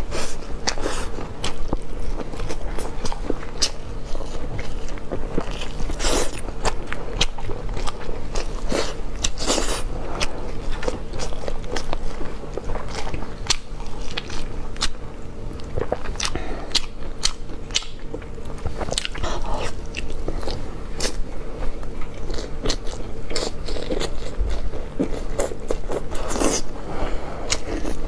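Close-up eating sounds: a person biting and chewing crunchy food, with irregular sharp crunches throughout, over a steady low hum.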